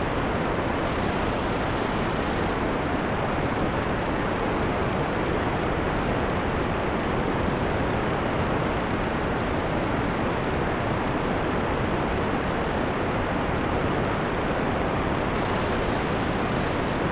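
Steady, even hiss with no distinct tones or changes.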